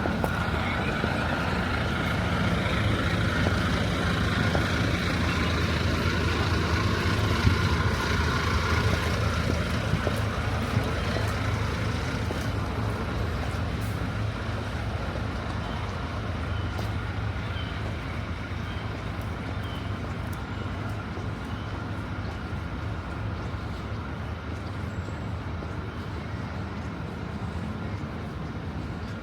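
Heavy vehicle engine running close by on a city street, loudest for about the first ten seconds and then fading into steady traffic noise.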